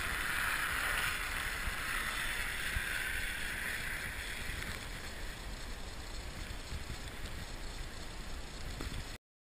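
Wind rushing over the microphone while riding across snowy lake ice: a steady hiss with low rumble that eases after about four seconds, then cuts off abruptly to silence near the end.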